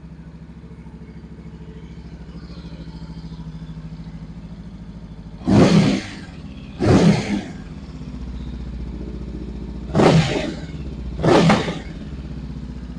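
A Honda CB500X's 471 cc parallel-twin engine, fitted with an aftermarket exhaust, idles steadily. It is revved in four short throttle blips, about a second and a half in and twice more near the end.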